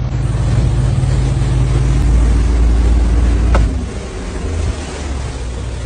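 Motorboat underway at speed: engine running with a heavy low rumble under wind and water rush, the rumble easing about three and a half seconds in.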